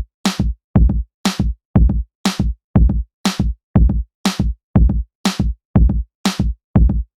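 Background electronic music with a steady drum-machine beat: deep kick drum about twice a second and a bright cymbal-like hit about once a second.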